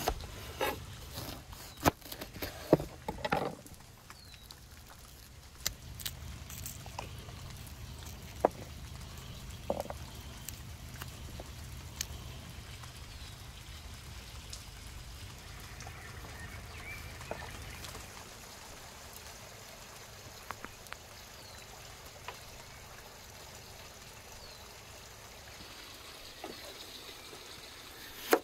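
Kitchen knife cutting through a whole garlic bulb and knocking on a wooden cutting board, several sharp knocks in the first few seconds. Then scattered light clicks and rustles of garlic cloves being peeled, over a steady low background, and another knife knock on the board near the end as an onion is cut.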